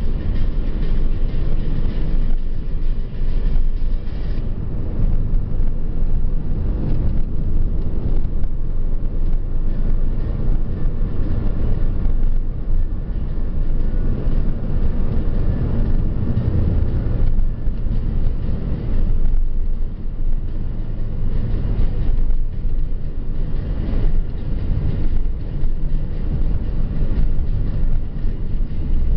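Steady low rumble of a car on the move: engine and tyre noise on the road surface.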